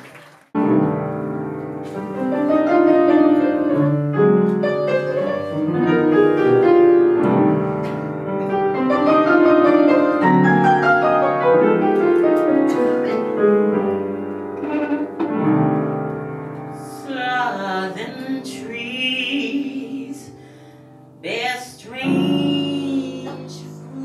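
Jazz piano playing chords and melody, starting suddenly about half a second in. In the last third a singing voice with a wavering tone comes in over the piano.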